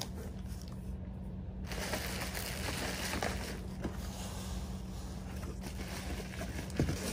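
Cardboard shipping box being opened and plastic air-pillow packing rustling and crinkling as hands dig into it, over a steady low hum.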